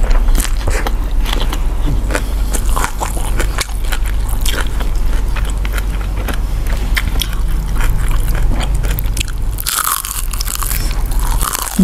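Close-miked eating sounds from people eating roast duck and rice with their fingers: chewing, smacking and wet mouth clicks, with a louder crunchy bite about ten seconds in.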